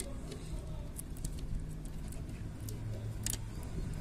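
Small clicks and taps from fingers handling a wired CMOS coin-cell battery and the plastic and circuit board of a laptop motherboard, the sharpest about three seconds in, over a low steady background rumble.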